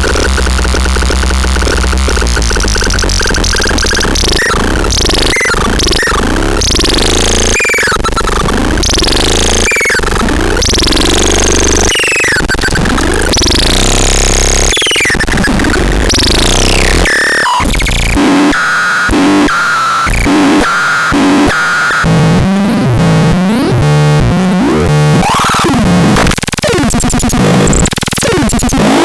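Loud electronic synthesizer sounds: a string of falling pitch sweeps repeating about every second, then, after a brief drop a little past halfway, glitchy chopped and stuttering notes.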